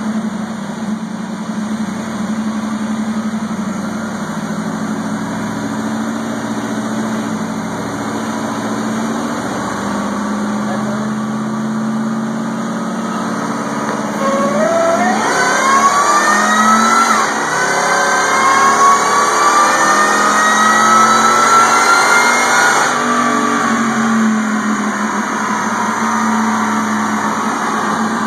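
Ford Lightning pickup's V8 running steadily on a chassis dyno, then a full-throttle dyno pull about halfway through: a whine climbs in pitch, dips briefly, climbs again and cuts off suddenly some eight seconds later as the throttle closes, leaving the engine running steadily again.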